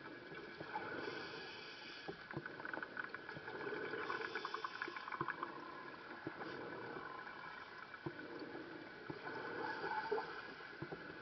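Scuba diver breathing through a regulator underwater: a hiss on each inhale, about three times, with crackling and gurgling of exhaled bubbles between. Muffled through the camera's underwater housing.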